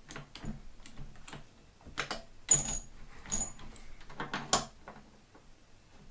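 Steel lathe tooling being handled and fitted: irregular light metal clicks and knocks, the sharpest about two and a half seconds in and again near four and a half seconds, a couple of them leaving a brief high metallic ring.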